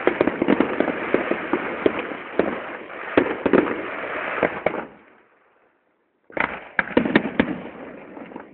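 Fireworks display going off: rapid overlapping bangs and crackling. It dies away about five seconds in, and after a brief gap a fresh run of sharp bangs starts.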